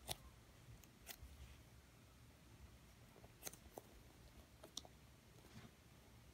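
Near silence, with a few faint clicks and taps from hands squeezing and turning a foam squishy toy.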